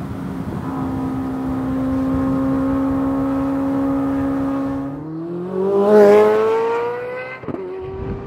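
2023 Chevrolet Corvette Z06's 5.5-litre LT6 flat-plane-crank V8 exhaust at a steady pitch, then revving up under acceleration about five seconds in, loudest around six seconds. The sound breaks off sharply near the end and resumes at a steady pitch.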